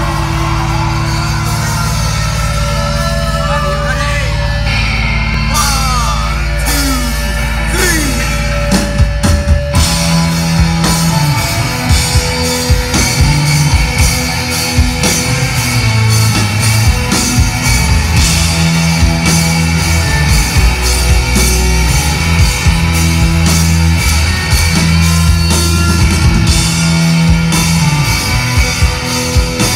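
Live rock band heard from the crowd, at a loud level. The song opens with a sustained, droning guitar chord and a few sliding notes. About nine seconds in, the drums and the rest of the band come in with a heavy, driving rock riff.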